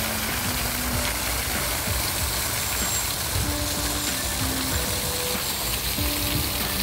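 Water from a fountain's jet spraying and splashing into its basin, a steady hiss. Soft background music of held single notes at a few pitches plays over it.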